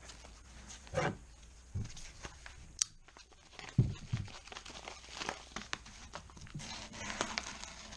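Irregular rustling and crinkling with a few dull knocks and one sharp click, the sound of things being handled at close range.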